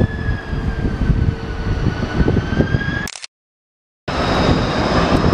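China Airlines Airbus A330 jet engines on approach overhead: a loud rumble with a high whine that slowly falls in pitch. The sound cuts out completely for most of a second a little past three seconds in, then resumes with the rumble and higher whines.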